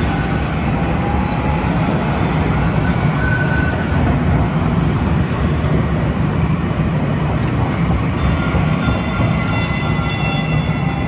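Kinki Sharyo light rail train running past on street track: a steady low rumble of wheels and motors with thin high squealing tones. A few sharp clicks come in the last few seconds.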